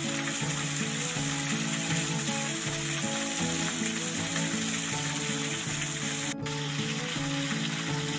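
Steady rushing of a waterfall, with background music of sustained low notes playing over it. The water noise drops out for a moment a little after six seconds in.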